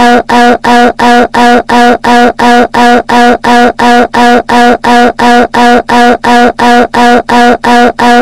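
A short, pitched, voice-like sound looped over and over, about three identical repeats a second, loud and unchanging throughout.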